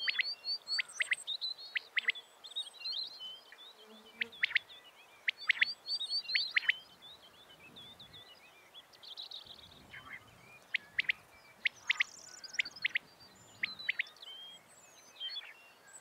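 Small birds chirping: many short, sharp downward-sweeping chirps and quick little runs of high notes, coming in irregular bunches with brief pauses between.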